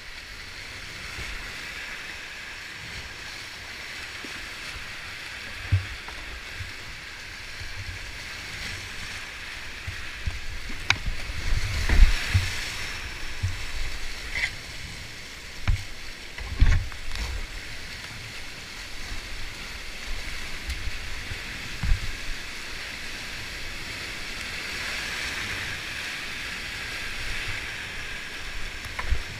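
Rushing whitewater of a steep grade IV creek rapid heard from on board a kayak, with several dull thumps and splashes as the boat goes through the drops, the loudest about twelve and seventeen seconds in.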